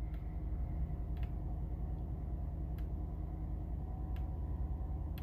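A 2020 Chevy Silverado's 5.3-litre V8 idling, a steady low hum heard inside the cab, with a few faint clicks from the steering-wheel menu buttons being pressed.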